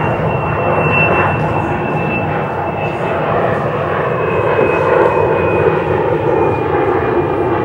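Recorded airplane engine sound effect: a steady, loud drone with a thin high whine over it that dips slightly in pitch midway.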